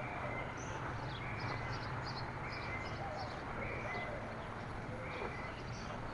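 Birds singing: short calls repeated about once a second, with quicker, higher chirps between them, over a steady faint outdoor background.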